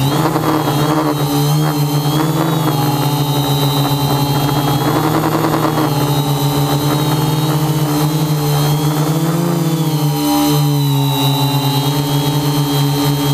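Electric motors and propellers of an FPV multirotor drone in flight, picked up close by its onboard camera: a loud, steady buzzing whine whose pitch wavers up and down with throttle.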